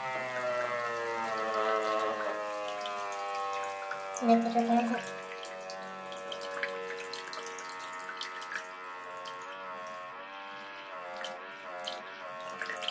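Homemade mini DC water pump, its small trimmer motor run off a 12-volt battery, whining steadily while pumping water. Its pitch drops over the first couple of seconds and then holds. Water splashes and sprays from the outlet pipe, and there is a brief louder burst about four seconds in.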